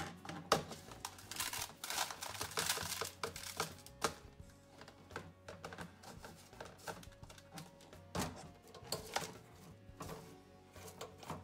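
Sunflower seeds being handled in a metal mesh sieve over a stainless steel sink: irregular clicks, rattles and taps of metal and seeds. Near the end, the wet seeds are scraped and knocked out of the sieve into a plastic tub.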